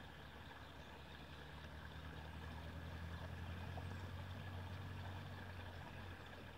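Faint low hum of an engine running, growing a little louder through the middle and easing off near the end.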